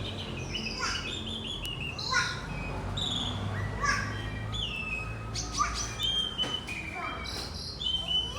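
Songbirds chirping and singing, short sweeping calls and clear whistled notes overlapping, about one call a second.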